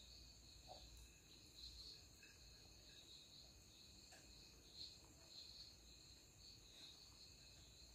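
Near silence: faint, steady, high-pitched insect chirring that pulses unevenly, with a few faint soft clicks.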